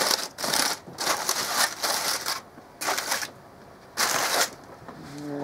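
Aluminium foil crinkling and crackling as a foil pack is pulled open by hand, in about six short bursts with brief pauses between them.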